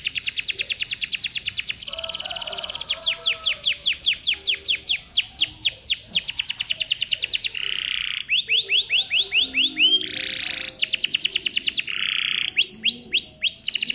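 Domestic canary singing a long, continuous song: fast trills of rapidly repeated notes, then runs of slower sweeping notes, broken every second or two by short harsh buzzes and new phrases.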